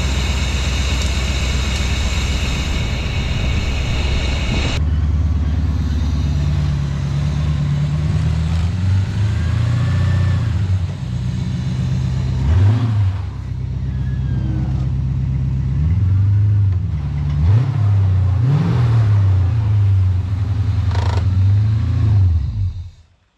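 Mercedes-Benz 560SEC's V8 engine running, its pitch rising and falling several times as engine speed changes. A steady hiss over it cuts off about five seconds in, and the sound fades out at the very end.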